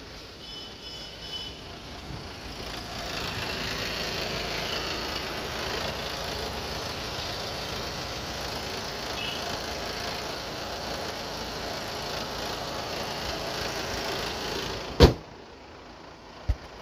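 Audi A6 TDI diesel engine idling steadily after a flywheel and engine mount change. About fifteen seconds in comes a single loud thump, the bonnet slamming shut, and the engine sounds quieter after it.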